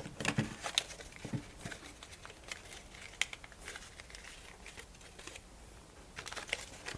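Strips of birch bark crinkling and clicking as they are folded and pushed through by hand: scattered small crackles, thicker in the first second and again near the end.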